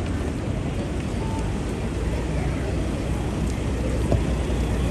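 Busy city street ambience: a steady low rumble of traffic under general street noise, with a short knock about four seconds in.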